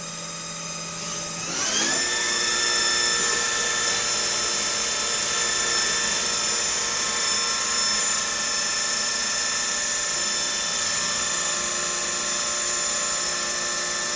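Tornos Deco 13 Swiss-type CNC lathe running with a high, steady whine. About a second and a half in, the whine rises quickly in pitch as the machine speeds up, then holds steady at the higher speed.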